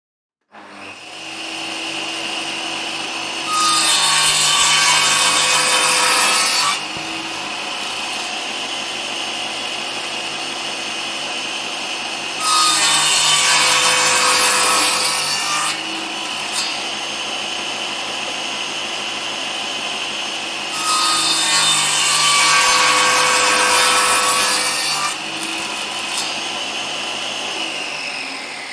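Circular saw running with a steady whine and making three cuts through timber, each cut louder and harsher and lasting about three seconds. The motor spins down near the end.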